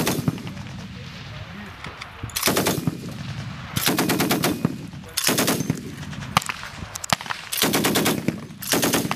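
DShK 12.7 mm heavy machine guns firing in short bursts of rapid shots: about six bursts of under a second each, with gaps of about a second between them and a few single shots in the gaps.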